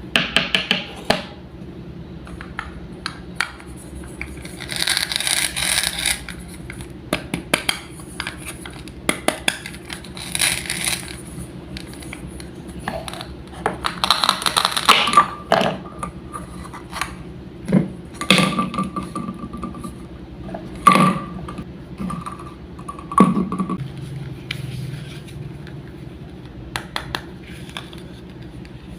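Wooden toy fruits and vegetables being cut and handled on a play cutting board: repeated sharp wooden clicks and knocks, with two scraping stretches about five seconds in and again near the middle, and a few short high pings later on.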